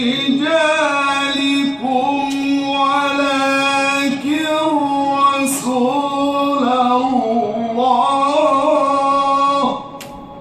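A man reciting the Quran in a melodic, chanted style: one long, ornamented vocal line held on a vowel, its pitch wavering and stepping, which stops shortly before the end.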